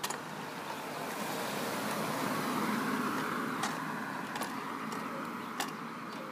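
A car passing on the street: its noise swells to a peak about three seconds in and then fades away. A few faint clicks sound over it.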